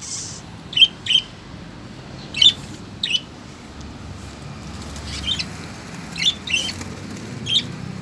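Budgerigars chirping: short, high calls in ones and twos, spread through the stretch with a quieter gap around the middle.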